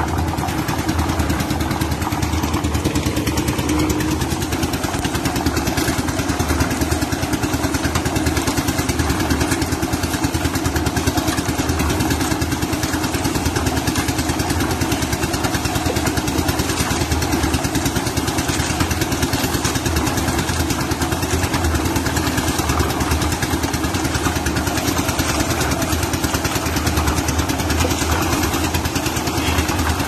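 Engine-driven drum concrete mixer running steadily while its drum turns a load of wet concrete.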